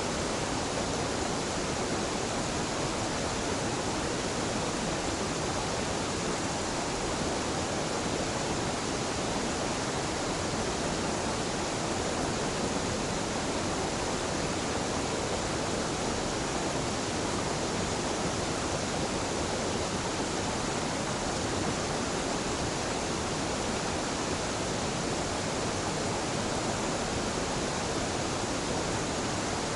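Small waterfall and mountain stream: a steady rush of falling water, even and unbroken.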